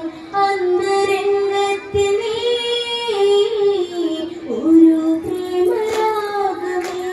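A girl singing a Malayalam Onam kali folk song into a microphone over a PA: one melodic line of long held notes that slide from pitch to pitch. A few sharp claps come through, about two seconds in and again near the end.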